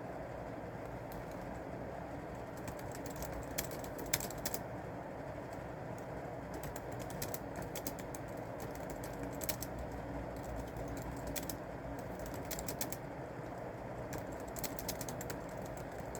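Someone typing on a computer keyboard in quick runs of key clicks with short pauses between them, over a steady background hum.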